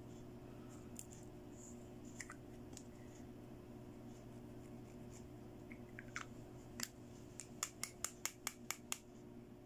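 Small plastic toy lipstick and its clear plastic cap being handled: a few soft scattered clicks, then near the end a quick run of about seven sharp light plastic taps, roughly five a second.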